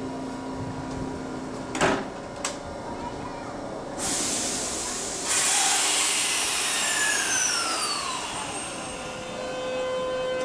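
Kintetsu 22000 series ACE limited express train about to depart. Two sharp clicks come first. About four seconds in, a loud hiss of released air starts and swells, then fades over several seconds with falling whistles. Near the end, a steady electric whine from the traction equipment sets in as the train starts to move.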